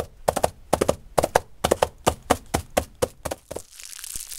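Foley horse hoofbeats on soft ground, made by striking two hand-held cups on a cloth-covered pad: muffled strikes in double beats about twice a second, like a trotting horse. They stop about three and a half seconds in, and a faint crinkle of plastic film follows near the end.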